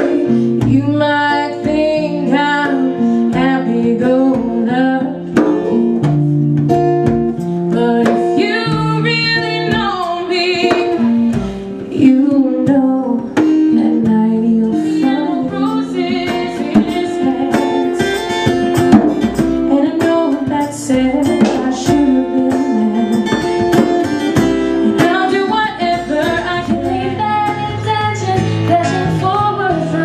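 Live song: a woman singing with a strummed acoustic guitar, and hand-drum and cymbal percussion beating along.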